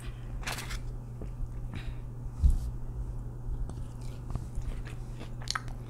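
Close-miked eating of waffle fries: soft scattered crunches and mouth clicks of biting and chewing, with one low thump about two and a half seconds in, over a steady low hum.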